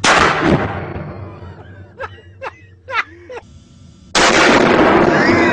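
Two rifle shots fired in a small room, each kicking the shooter back. The first comes right at the start with a long echoing tail; the second, about four seconds in, stays loud for over a second with voices shouting over it.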